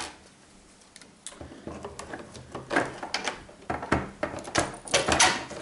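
Hard plastic parts of a slingshot crossbow being handled and fitted together, including the red bow arm going onto the stock: an irregular series of clicks and knocks, starting after about a second of quiet.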